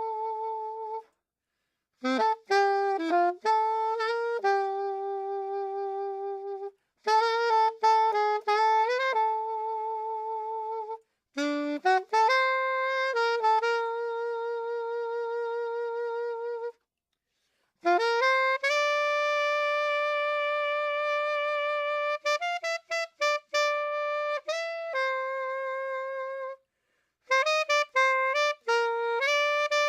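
Background music composed in Band-in-a-Box: a lone melody line of held notes with quick runs, played in phrases separated by short silences, with no accompaniment.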